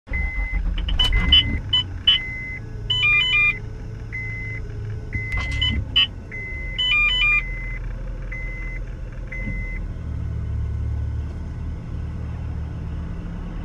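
Short electronic beeps repeating roughly once a second, with two brief groups of higher chime-like tones, over a steady low vehicle rumble.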